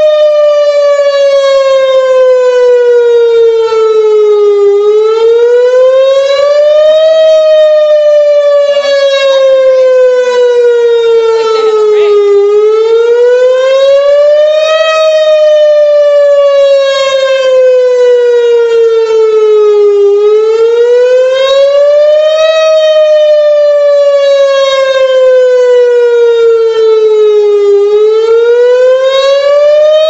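Outdoor tornado warning siren sounding very loud, one pitched tone that rises quickly and then slides down more slowly, repeating about every seven to eight seconds, four times over.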